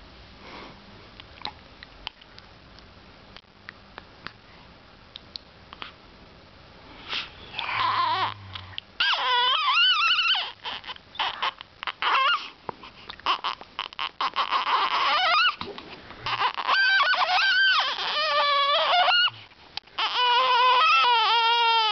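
Young baby crying: quiet with a few small clicks for the first several seconds, then loud, rising-and-falling wailing cries that begin about seven seconds in and come in repeated bouts with short breaks between them.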